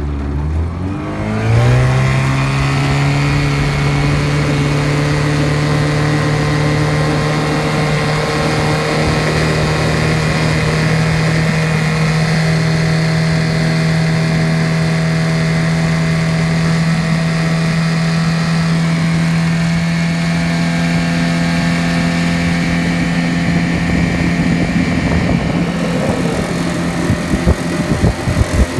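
1975 Mercury 7.5 hp two-stroke outboard motor throttling up, its note rising over the first couple of seconds, then running steadily at speed pushing a small jon boat. Near the end the steady note fades and gives way to irregular thumps.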